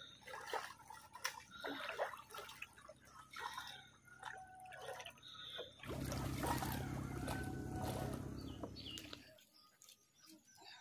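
Shallow creek water trickling and splashing in small scattered bursts. About six seconds in, a low rumble comes in for about three seconds and then cuts off suddenly.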